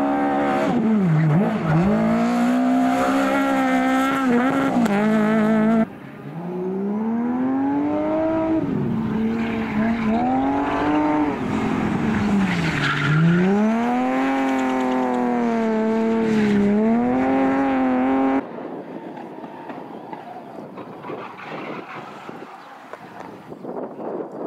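Rally car engines revving hard, their pitch climbing and dropping again and again through gear changes and lifts off the throttle. The sound breaks off abruptly about six seconds in and picks up again. About three-quarters of the way through it cuts to a much quieter background.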